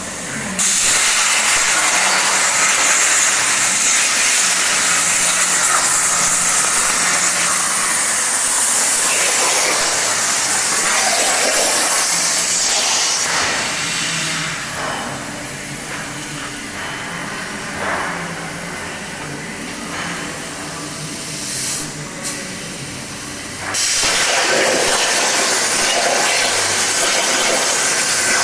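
Hypertherm MAXPRO200 plasma torch cutting 12 mm steel at 200 amps on oxygen over a water table: a loud, steady hiss of the plasma arc. About halfway through it drops quieter for roughly ten seconds, then comes back strong near the end.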